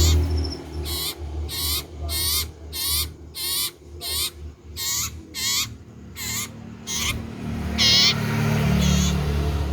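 Common iora (cipoh) singing loudly: a quick run of short, high, wavering trilled notes, about two a second, with a low background rumble at the start and again near the end.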